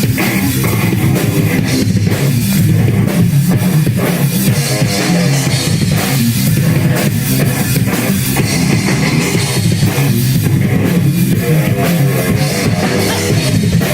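Rock band playing a loud, heavy song live, with a pounding drum kit and electric guitars.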